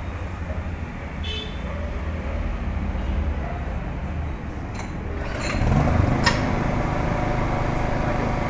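Honda EP1000 portable generator's small engine running steadily. About two-thirds of the way through its pitch rises and it settles a little louder and steadier. A few light clicks are heard.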